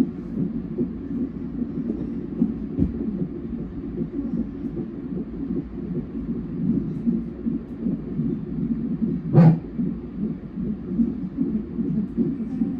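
Fetal heartbeat played through a fetal monitor's Doppler ultrasound transducer during a non-stress test: a fast, rhythmic pulsing that runs without a break. A single sharp, louder knock comes about nine seconds in.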